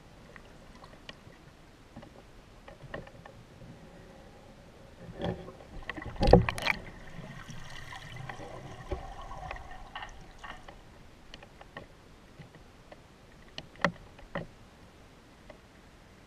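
Underwater sound through a waterproof camera: scattered faint clicks, then a cluster of loud knocks and rattles about six seconds in, followed by a few seconds of faint hum with several steady tones. Two sharp clicks come near the end.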